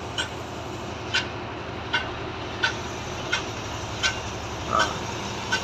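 Short sharp ticks repeating evenly about every three-quarters of a second over a steady background hum of traffic and machinery.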